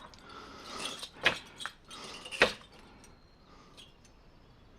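A few light clinks and knocks of small hard objects being handled, two sharper ones about a second and about two and a half seconds in, then quiet.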